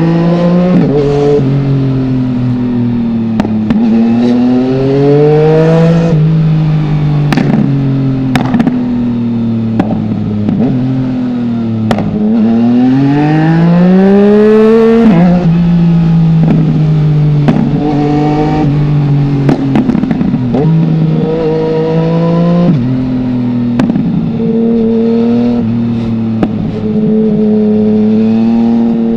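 2020 Yamaha MT-09's 847 cc three-cylinder engine through an Akrapovic full-system exhaust with no dB killer, revving up and down through the gears, its pitch dropping sharply at each gear change. It gives one long, hard rising pull in the middle, with occasional sharp cracks, then settles to a steady note near the end.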